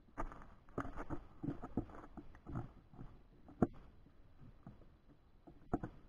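Gemsbok oryx close to the microphone: irregular crunches, scuffs and taps, with one sharp click about three and a half seconds in and another pair near the end.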